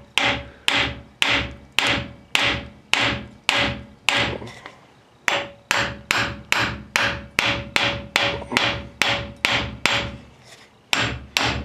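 Hammer blows on the steel front wheel hub of a 1994 Toyota 4Runner axle, knocking the stuck hub loose to slide it off the spindle. About two strikes a second, each with a short metallic ring, stopping briefly twice.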